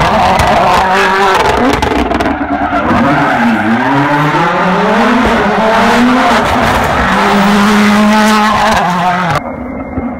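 Toyota Yaris WRC rally car's turbocharged 1.6-litre four-cylinder engine at full throttle. Its pitch drops through downshifts about three and a half seconds in, then climbs and holds high as the car accelerates up the road. The loud engine sound cuts off abruptly about nine seconds in, leaving a quieter engine sound.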